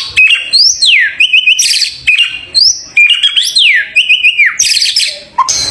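White-rumped shama singing: loud, repeated phrases of whistled notes that sweep sharply up and then down, broken by quick stuttering chips.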